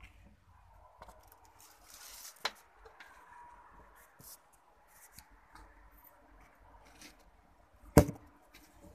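Handling noise from a phone being moved close to a cardboard box: faint scattered clicks and rustles, a sharp click a couple of seconds in, and one loud knock near the end.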